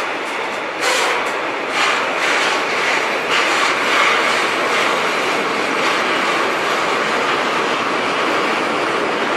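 Freight train of tank wagons rolling past: a steady rush of wheels on rails, with a few sharp clacks in the first few seconds.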